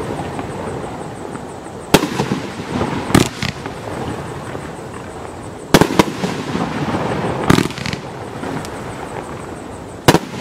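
T-Sky Devastation Nation 23-shot consumer fireworks cake firing: shells launching and bursting overhead, five loud sharp bangs spaced roughly two seconds apart, with weaker pops and steady crackling in between.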